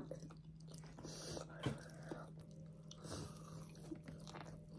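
Faint chewing and biting of corn on the cob and broccoli, with a few small clicks over a low steady hum.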